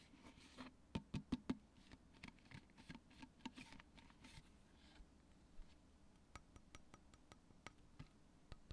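Faint, scattered clicks and taps over a low steady hum, with a quick run of them about a second in: near-quiet handling noise.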